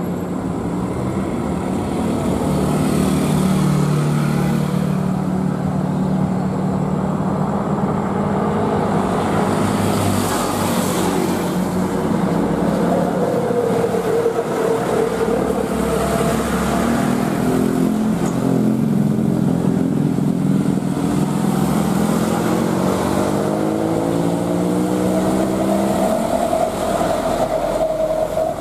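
Airbus A320 airliner's jet engines running, a steady loud whine with tones that slide up and down, as the jet moves slowly on the wet runway.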